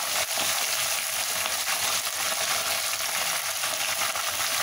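Hot oil sizzling steadily as sliced green pumpkin, green chillies and garlic fry in a wok, with a soft crackle as more pumpkin slices are dropped into the oil.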